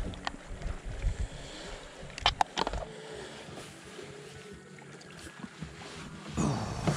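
Handling noise from a clear plastic tub of soft-plastic lures being rummaged through: small knocks and a quick run of sharp plastic clicks about two and a half seconds in, then a louder rustling rush near the end.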